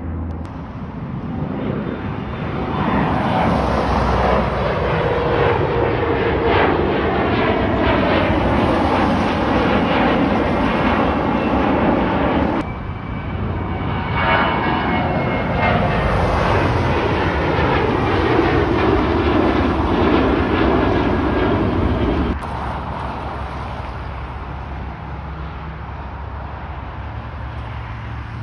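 Departing airliners climbing out overhead: engine noise swells and slides down in pitch as each passes. The second is a Boeing 737's CFM56 turbofans on takeoff climb. The sound breaks off abruptly twice, at about 12 and 22 seconds in, leaving a quieter steady rumble near the end.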